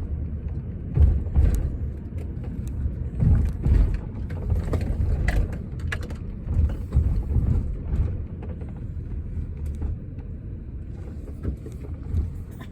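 Car driving, with road and engine rumble heard from inside the cabin that swells and fades, and a few light clicks.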